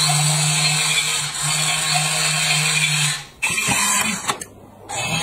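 Battery-powered toy Thomas the Tank Engine's small motor and plastic gears whirring steadily, then stopping about three seconds in. A few sharp clicks follow as a hand handles a toy train.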